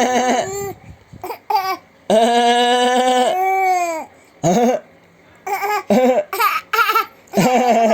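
A small child laughing: long held vocal laughs, one sliding down in pitch as it trails off, broken up by a run of short laughing bursts.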